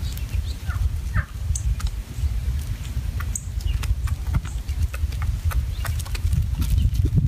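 Wild turkeys feeding on gravel: many sharp, irregular clicks of beaks pecking at the ground, with scattered short bird calls, over a loud, fluctuating low rumble.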